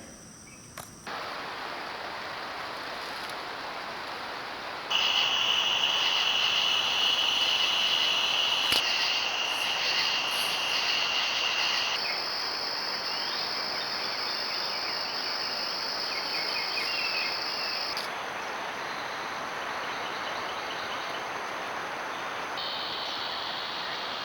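Steady trilling of crickets and other insects with a constant background hiss, picked up by a trail camera's microphone; the pitch and loudness of the insect sound change abruptly every few seconds as one camera clip cuts to the next.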